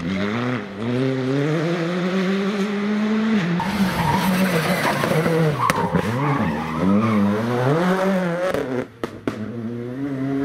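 Rally car engine revving hard through a bend, its pitch climbing and falling again and again with throttle lifts and gear changes. The sound cuts out briefly twice near the end.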